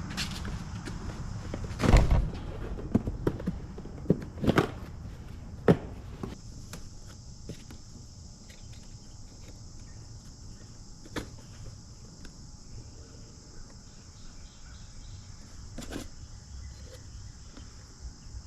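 A few sharp knocks and clanks of handled metal in the first six seconds, the loudest about two seconds in. Under them and after them, crickets chirp steadily in a high even band.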